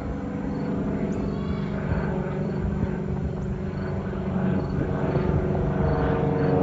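Cessna 182 Skylane's piston engine and propeller droning overhead on departure climb: a steady hum made of several tones over a low rumble, growing louder toward the end.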